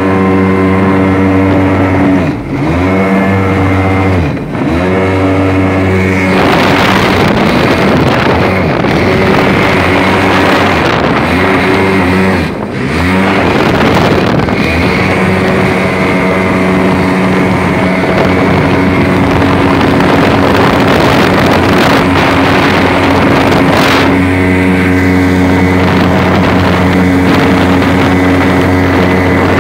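A 650cc jet ski two-stroke engine driving a small boat under way, running steadily at speed with the throttle easing off briefly three times in the first half. From about six seconds in, a loud rush of water and wind mixes with the engine.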